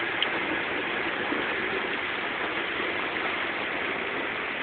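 Steady rushing noise of rain and floodwater heard from inside a car, with no distinct events.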